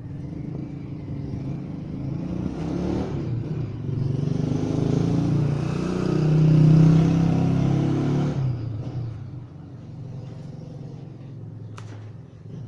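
A motor vehicle's engine passing by: it grows steadily louder, is loudest a little past the middle, then fades quickly and leaves a low steady hum.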